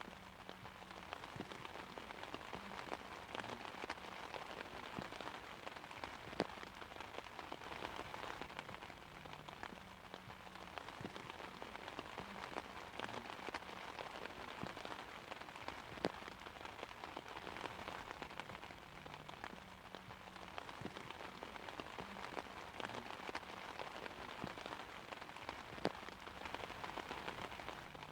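Steady rain pattering on an umbrella's fabric canopy, a continuous hiss of fine drops with occasional louder single drops striking it, and no thunder.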